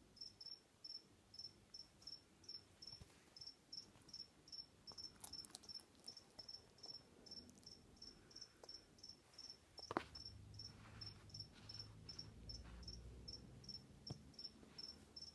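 A cricket chirping steadily, a short high-pitched chirp about two and a half times a second, with a single sharp click about ten seconds in.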